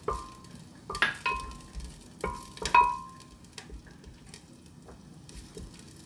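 A wooden spoon stirring onion and garlic frying in oil in a black ceramic pot, knocking against the pot about five times in the first three seconds with a short ringing tone after each knock. A light sizzle runs beneath, and the second half is quieter.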